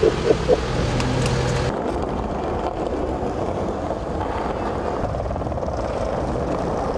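Short sounds and a low hum at first, cut off abruptly under two seconds in; then the steady rolling roar of skateboard wheels on pavement.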